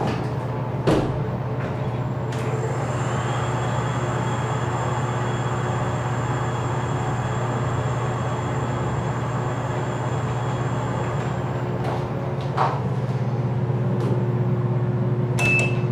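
ThyssenKrupp TIME machine-room-less traction elevator heard from inside the car on a downward run: a steady hum from the cab fan and ride, with a faint high whine from the drive that fades out as the car stops about twelve seconds in. There is a knock about a second in, another as the car stops, and a short electronic beep near the end.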